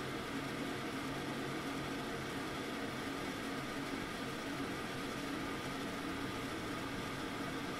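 Kitchen range hood fan running steadily: an even rush of air with a low hum underneath.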